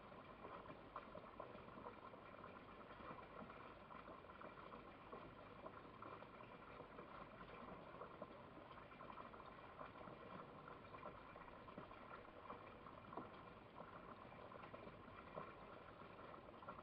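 Near silence: a faint, even crackling hiss.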